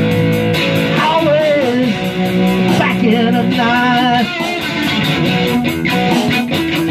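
Electric guitar playing a slow rock groove, with a wavering, bending lead melody over it from about a second in.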